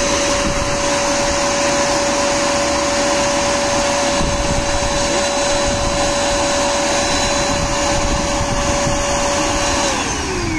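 A 750-watt corded vacuum cleaner running with a steady motor whine at one pitch, then switched off about ten seconds in, the whine falling as the motor spins down.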